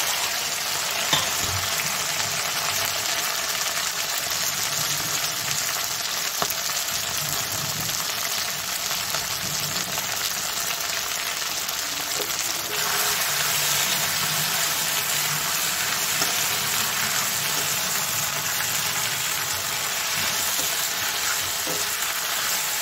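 Boiled, partly sun-dried elephant apple (outenga) slices sizzling steadily in hot oil in a wok while being stirred with a spatula. The hiss grows a little brighter about halfway through.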